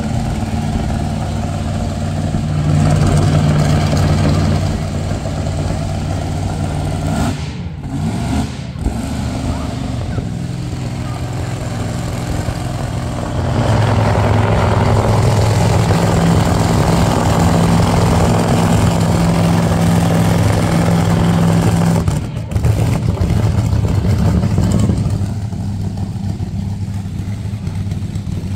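Car engines running at low speed as show vehicles drive past one after another, with a steady low engine hum that changes pitch and loudness about 3, 13 and 22 seconds in as a different engine takes over.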